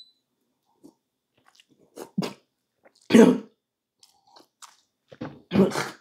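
Mouth noises of a person drinking from a plastic cup and chewing: short gulps and breaths in separate bursts. The loudest burst comes about three seconds in, and another strong one comes near the end.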